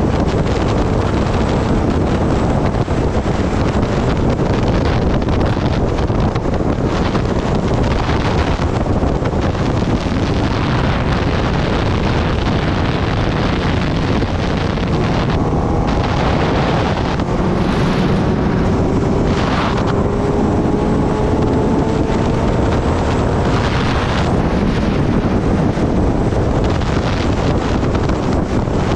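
Heavy wind noise on the microphone at highway speed over the running inline-four engine of a Kawasaki Ninja ZX-10R. About halfway through, a faint tone rises slowly in pitch for several seconds.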